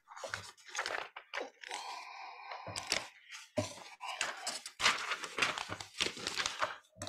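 Papers rustling and crinkling close to the microphone in fits and starts, with a few sharp cracks.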